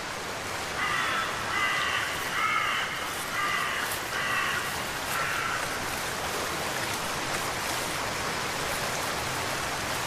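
A bird calling about six times in the first half, each call short and harsh, over the steady rush of flowing river water.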